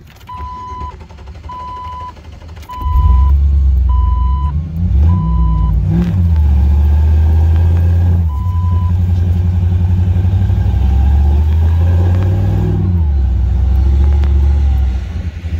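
Backup alarm on heavy equipment beeping steadily, about one beep a second, six beeps in all. From about three seconds in, a Jeep's engine runs loud under load in the sand, rising and falling in pitch as it pulls through the course.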